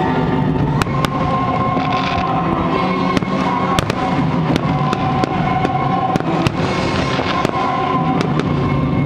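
Fireworks going off: a string of sharp bangs and crackles, several a second at times, over continuous music with long held notes.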